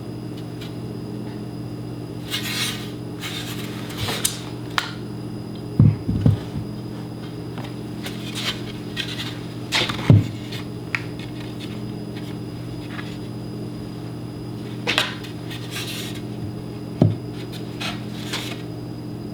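Wooden scrap pieces being handled and positioned on a workbench: scattered knocks and short scrapes over a steady low hum.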